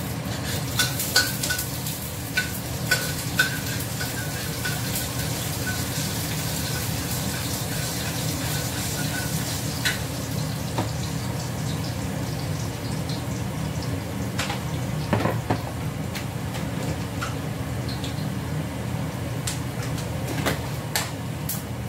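Food frying in a wok over a gas burner: a sizzling hiss, stronger in the first half, over a steady low hum. Sharp metal clinks of a spatula against the wok come in a cluster at the start, twice in the middle and twice near the end.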